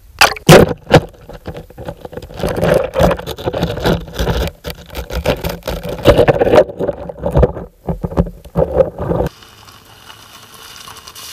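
Handling noise on an action camera held low on gravel: irregular loud knocks, rubs and scrapes against the microphone, with gravel crunching. After about nine seconds it drops to a quieter hiss.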